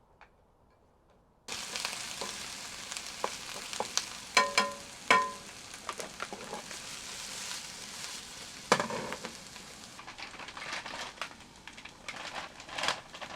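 Food sizzling as it fries in a hot pan, starting abruptly about a second and a half in, with clicks and scrapes of a utensil stirring and a few ringing metallic clinks against the pan.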